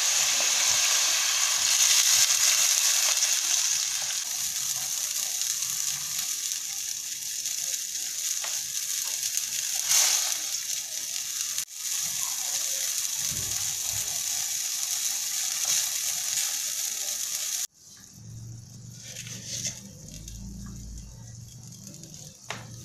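Pork slices sizzling in a stainless steel pot, the sizzle swelling as a cup of water is poured in, then a steady hiss as the liquid cooks. Near the end the hiss cuts off sharply, leaving a low hum and a few light clicks.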